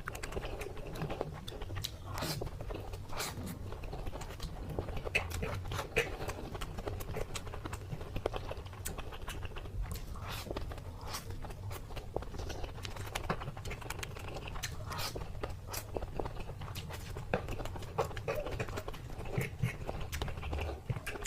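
A person chewing and biting crispy food close to the microphone, with many irregular crunches.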